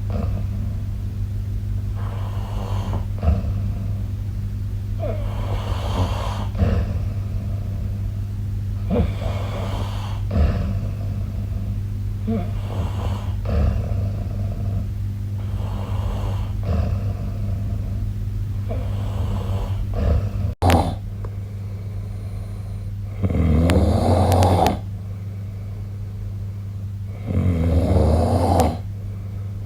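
A sleeping person snoring. There is a run of shorter snores every few seconds, then, after an abrupt break about two-thirds of the way in, two longer, louder snores about four seconds apart. A steady low hum runs underneath.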